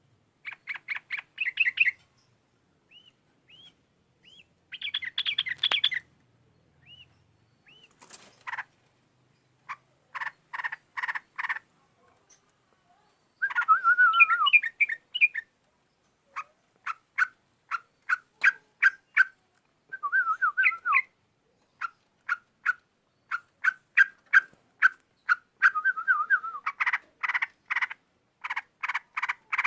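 Yellow-vented bulbul (trucukan) song: bursts of short, rapidly repeated notes and a few quick warbled phrases, separated by brief pauses and coming thicker toward the end.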